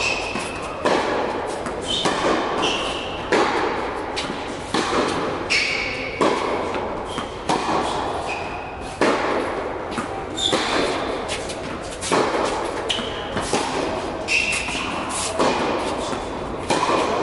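Tennis rally: rackets striking the ball and the ball bouncing on the court, a couple of sharp hits a second, with short high squeaks from shoes on the court surface. The hits echo in a large indoor hall.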